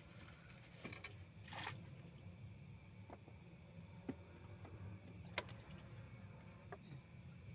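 Faint night ambience: a steady low hum with faint insect chirring, broken by a short rustle about one and a half seconds in and a few light clicks as a fishing rod is lifted and handled.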